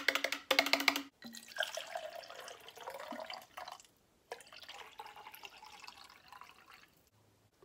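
Water pouring from a plastic water jug into a plastic tumbler, trickling in two stretches with a short break about four seconds in. A short buzzing sound comes first, in the opening second.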